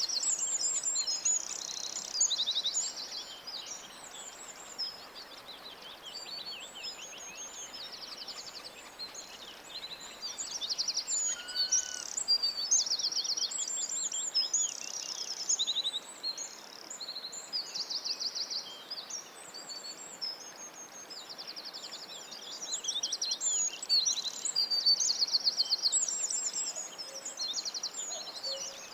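Several small birds singing together in a dense chorus of rapid, high-pitched trills and chirps, over a faint steady hiss.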